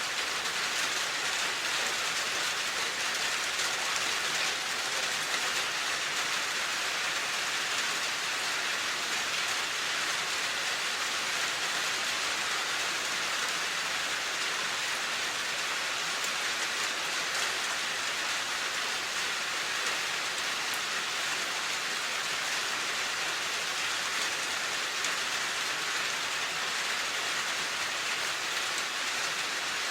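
Steady rain falling, an even hiss of many drops with no breaks or changes.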